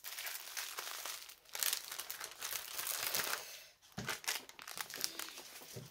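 Small clear plastic bags of diamond painting drills crinkling as they are handled, a dense rustle for about three and a half seconds, then a few shorter rustles.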